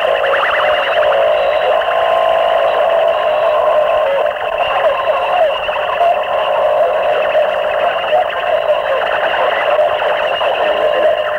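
Harsh noise music from a 1992 cassette demo: a dense, steady wall of distorted electronic noise packed into the middle range with almost no bass, with a fast flutter near the start.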